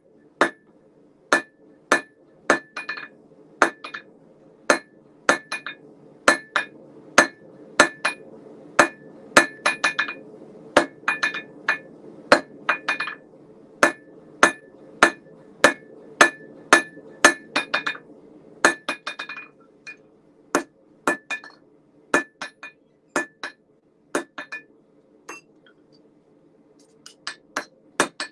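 Hand hammer striking hot S7 tool steel on an anvil in a steady rhythm of about two blows a second, each blow with a bright metallic ring. After about twenty seconds the blows come farther apart and lighter.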